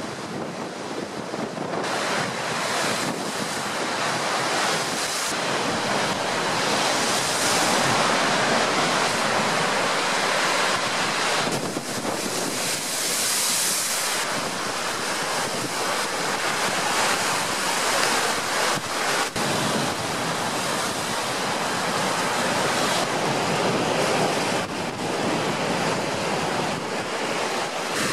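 Storm wind gusting hard over a lake, with whitecapped waves slapping and breaking against the shore and embankment, and heavy wind buffeting on the microphone. The rush swells and eases with the gusts.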